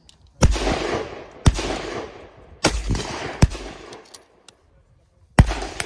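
Centrefire rifle shots: five sharp cracks spread irregularly over a few seconds, most followed by an echoing tail.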